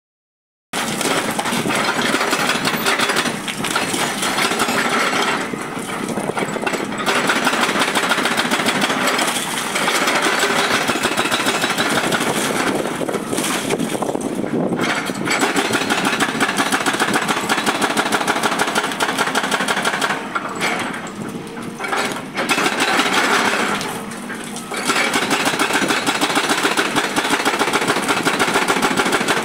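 Hydraulic rock breaker on a tracked excavator hammering into a rock face: rapid, steady blows, broken by a few short pauses.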